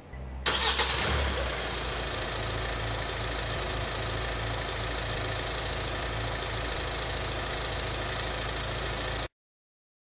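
Hyundai Tucson (TL) engine starting by remote start: it cranks and catches about half a second in, flares up briefly, then settles into a steady idle. The sound cuts off abruptly near the end.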